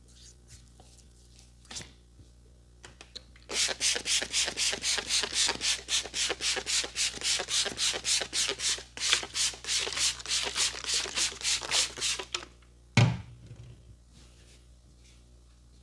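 Hands giving a head massage, rubbing briskly in rapid even strokes, about four a second, for roughly nine seconds, then stopping. A single loud thump comes a moment after the strokes stop.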